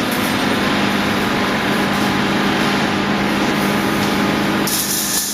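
Wire mesh production-line machinery running steadily: a constant low hum under mechanical noise, with a brief hiss about five seconds in.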